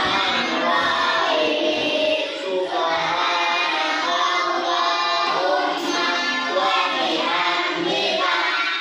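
A class of young children chanting a closing prayer together in unison, with a sung, melodic delivery.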